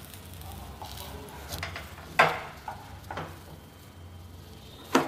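Wooden spatula scraping and knocking against a nonstick frying pan as a cooked omelette is lifted out, with a sharp knock about two seconds in and another near the end.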